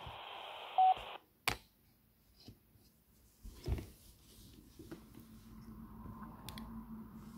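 Baofeng UV-S9 handheld radio hissing through its speaker microphone at the tail of an incoming transmission, with a short single-tone beep about a second in; the hiss then cuts off as the squelch closes. A sharp click follows, then a soft handling thump.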